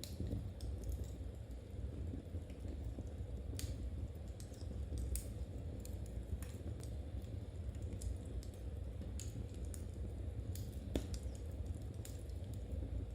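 Knitting needles clicking against each other at an irregular pace as stitches are worked, over a steady low rumble.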